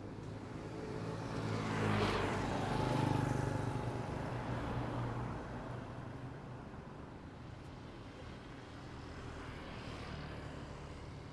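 A motor vehicle drives past close by, loudest about two to three seconds in, with a low engine hum trailing off over the next few seconds. A fainter vehicle approaches near the end over a steady hum of street traffic.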